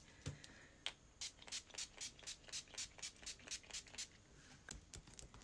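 Pump-mist bottle of makeup setting spray spritzed in a quick run of short hisses, about four a second.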